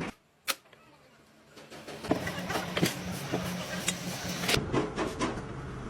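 A machine running with a steady hum and many sharp clicks and taps, after a short silence; a deeper low rumble comes in about halfway through.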